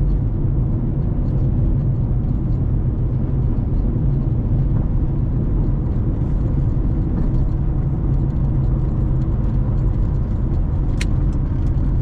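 Car driving, heard from inside the cabin: a steady low engine and road rumble. There is a single short click near the end.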